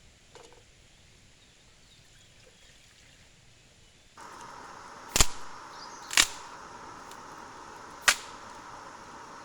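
Three sharp knocks or cracks, the first two a second apart and the third about two seconds later, over a steady hiss that starts suddenly about four seconds in.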